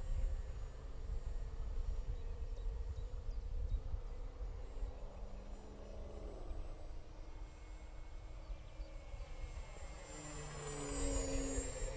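Simulated aircraft engine sound from a TPV Electronics sound card played through a piezo speaker on an RC cargo twin model, a steady drone whose pitch drops about six seconds in and shifts again near the end, over a low rumble.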